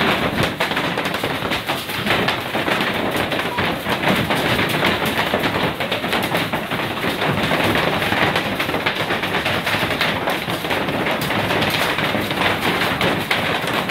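Hailstorm: hailstones pelting down in a dense, continuous clatter of many small impacts.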